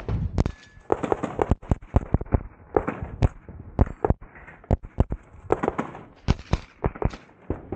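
Rapid gunfire from a carbine: sharp shots in quick pairs and short strings, with brief pauses between groups, the pace of a shooter engaging targets one after another on a practical shooting stage.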